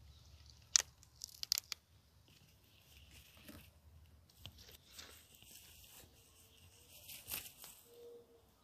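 Green onion stalks being picked by hand: a sharp crack about a second in, a quick cluster of crackling tears just after, then softer crackling and rustling of the stalks.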